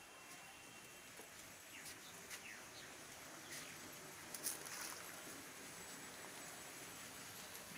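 Quiet outdoor ambience with a few faint, short bird chirps. One brief, sharper, high-pitched sound comes about four and a half seconds in.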